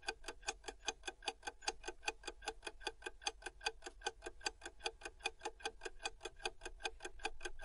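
Clock-ticking countdown timer sound effect: rapid, even ticking that runs through the guessing pause and stops abruptly at the end.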